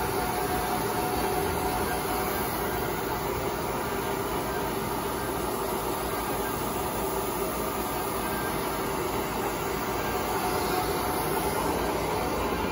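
Half-horsepower vacuum hold-down pump of a flatbed stencil cutter running steadily, a constant hum.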